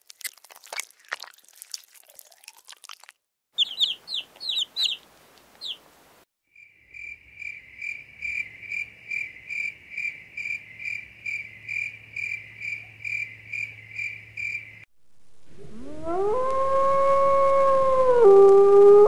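Caterpillars chewing a leaf, a quick run of small crunching clicks, then a few short high chirps. Next an insect chirps in an even rhythm at one steady pitch, about two chirps a second. Near the end a wolf howls, one long note that rises, holds and steps down in pitch.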